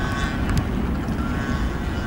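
Boeing 737-300's jet engines rumbling steadily during its take-off departure, mixed with wind buffeting the microphone.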